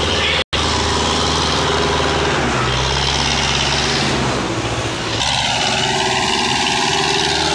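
Belarus tractor's diesel engine running steadily under load as it pulls a trolley heavily loaded with sugarcane. The sound cuts out for an instant about half a second in.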